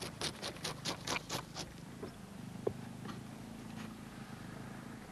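A knife scraping along a pike on a wooden board: quick, even strokes about five a second that stop a little under two seconds in. A single sharp click follows, over a steady low hum.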